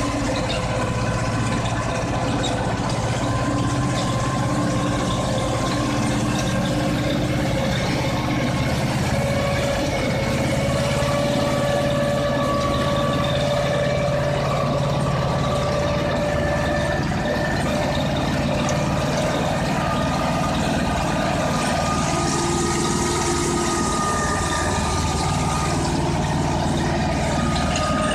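Ursus C-330M tractor's two-cylinder air-cooled diesel engine running steadily as the tractor drives along, its pitch drifting slightly up and down.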